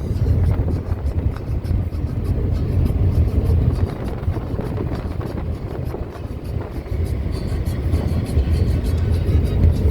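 Steady low engine drone with rushing, buffeting noise from a moving vehicle under way.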